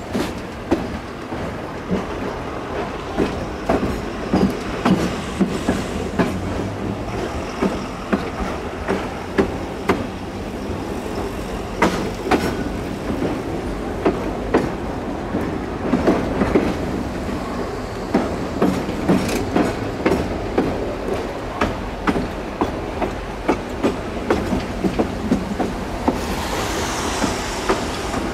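Narrow-gauge train wheels clattering over rail joints and switch frogs, a steady rumble broken by many irregular knocks and clicks. A higher hiss joins in near the end.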